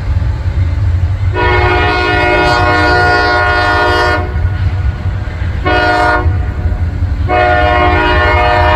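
Freight train air horn sounding three blasts (long, short, then long again) over the steady low rumble of the passing train.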